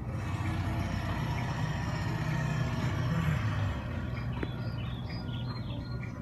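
Steady low engine rumble, like a small vehicle running, a little louder in the first half.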